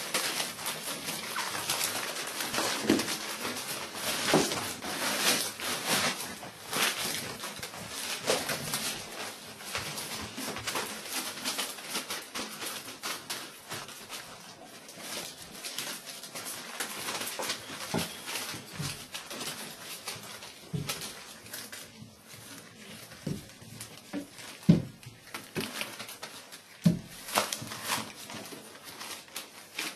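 Whippet puppies squeaking and yipping while their paws scrabble and rustle over newspaper, a busy run of many short scratchy sounds with a few sharper louder yelps in the second half.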